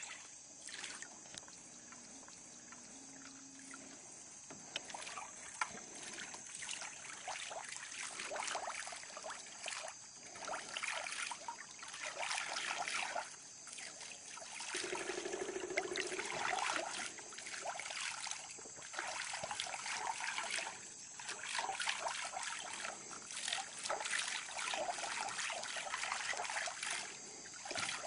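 Shallow water sloshing and trickling as a wader moves through it, in irregular surges every second or two that grow louder after the first several seconds.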